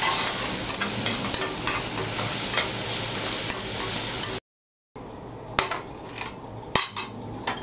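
Tomato curry sizzling and bubbling hard in a kadhai on a gas flame, a steady hiss with scattered small clicks, as a steel lid goes on. About four seconds in the sound cuts out briefly. After that it is quieter, with a few sharp clinks and knocks of utensils being handled.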